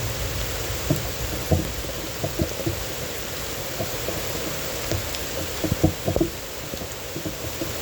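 Steady heavy rain, with large drops knocking irregularly on a nearby surface and a cluster of louder drops about six seconds in.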